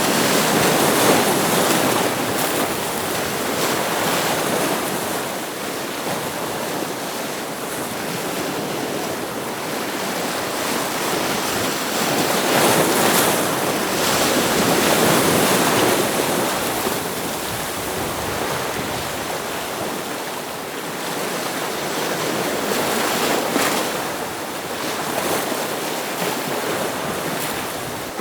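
Ocean waves breaking against rocks, a continuous surging wash that swells and eases every several seconds, with the loudest surges about a second in and about 13 to 16 seconds in.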